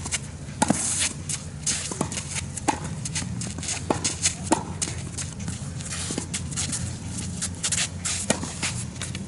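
Tennis drill: racket strikes on the ball and ball bounces on the court, sharp knocks coming every second or so at uneven spacing, with many lighter scuffs of sneakers moving on the court surface between them.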